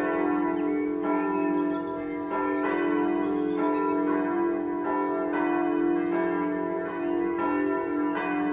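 Several church bells ringing together in a full peal. Overlapping strikes come about once a second over a steady ringing hum.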